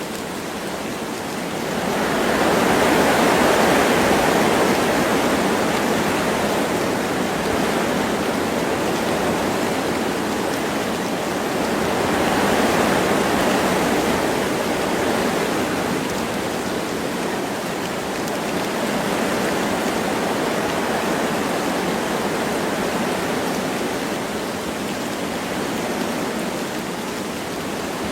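Wind blowing through forest trees with light rain falling, a steady rushing hiss that swells in gusts about two seconds in and again around twelve seconds.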